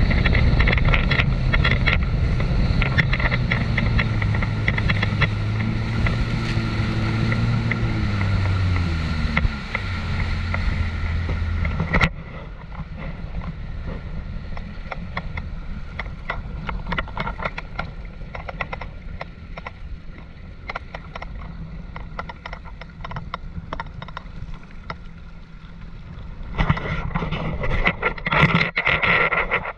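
Jet ski engine running at speed amid spray and wind, its pitch falling as it slows about ten seconds in and dropping away suddenly at about twelve seconds. After that, a quieter wash of water and wind with a fainter engine, and a louder rush of wind and water near the end.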